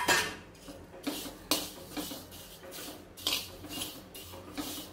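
Steel spoon stirring and scraping sesame and poppy seeds across a hot flat tawa griddle: a sharp clink of spoon on pan at the start, then a run of short scraping strokes.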